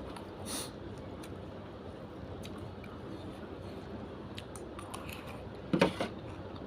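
A person eating noodles and raw vegetables up close: chewing and biting, with a short crisp sound about half a second in and a louder bite near the end.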